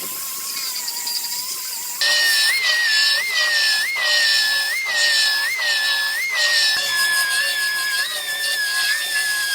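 High-speed pneumatic grinder whining while dressing welds on a car's B-pillar panel. The whine is steady at first. About two seconds in it becomes louder and higher, its pitch jumping up briefly about every three quarters of a second as the tool is worked against the metal, then running steadier near the end.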